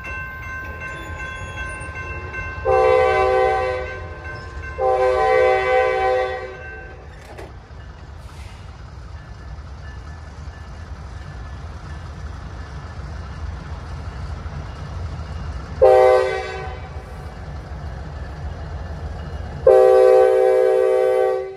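Nathan K5LA five-chime air horn on a Norfolk Southern EMD SD60E locomotive sounding the grade-crossing signal: two long blasts, then a short one about ten seconds later, then a final long blast near the end. A low rumble from the approaching engine runs underneath.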